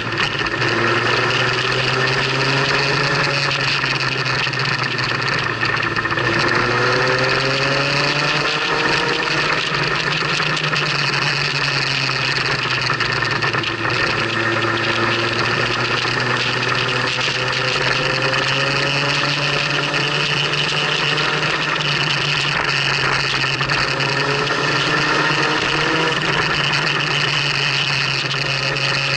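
Motorcycle engine running while riding, its pitch rising again and again as it accelerates through the bends, over a steady rush of wind and road noise.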